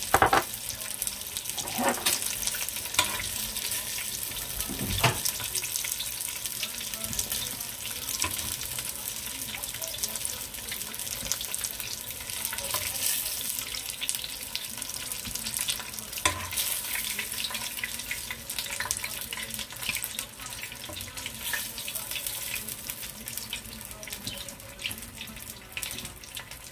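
Hot oil sizzling and crackling steadily as chicken wings deep-fry. A few sharp clicks and knocks of metal tongs handling the fried wings.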